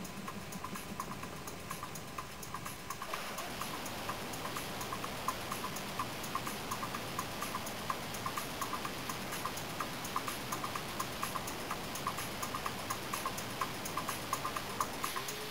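The onboard camera's own microphone on a radio-controlled model plane picks up a steady rushing noise with a light, regular ticking several times a second. About three seconds in, the noise becomes fuller and brighter.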